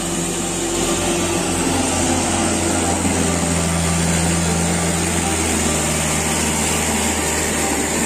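Farm tractor's diesel engine running steadily under heavy load while hauling a trolley of stone slabs, strained enough that its front wheels lift off the ground.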